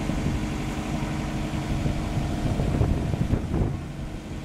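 Motor cruiser's engine running steadily under way, with a rush of wind and water noise that swells briefly about three seconds in.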